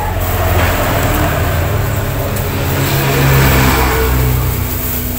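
A motor vehicle's engine running as it passes. The sound swells to its loudest about three and a half seconds in, then eases off.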